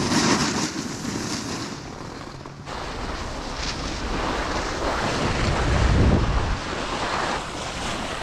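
Wind rushing over the microphone of a camera moving down a ski slope, mixed with the hiss and scrape of skis and a snowboard sliding on snow. The sound changes abruptly about two and a half seconds in, and the low wind rumble grows heaviest around five to six seconds in.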